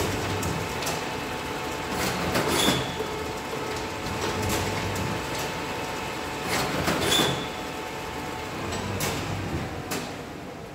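Nagel Robo Feeder and Foldnak 8 folder-stitcher line running, a steady machine hum with irregular sharp clacks as sheets are fed and handled. It quietens near the end as the job is stopped.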